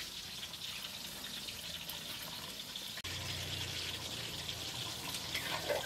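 Lime juice and liquid seasoning trickling and dripping into a wooden mortar of pounded chili and garlic.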